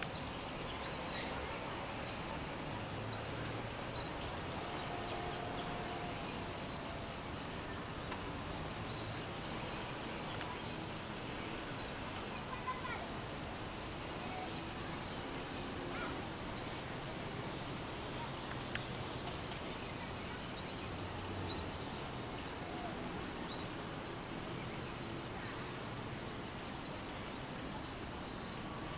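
Lesser goldfinch singing: a long, unbroken run of short, high, down-slurred twittering notes, two or three a second, over steady background noise.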